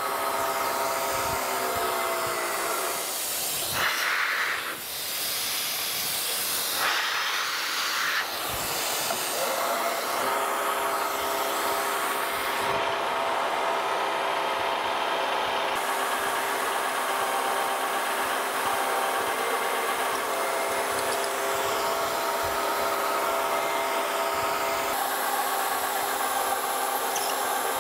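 Wells-Index vertical milling machine drilling a hole in a steel part with a twist drill, under a hiss of mist coolant. The spindle and cut settle into a steady multi-tone whine about ten seconds in.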